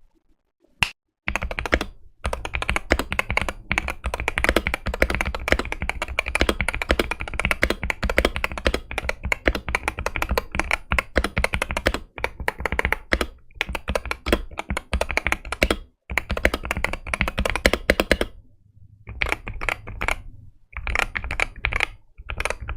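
Fast typing on a computer keyboard, a dense run of key clicks and thocks that pauses briefly about 16 seconds in and thins out near the end into short bursts.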